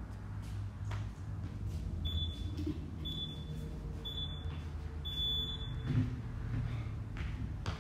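Wall-mounted gym interval timer beeping the countdown to the start of a workout: three short high beeps a second apart, then a longer beep that marks the start. A thump follows about a second later, over a steady low room hum.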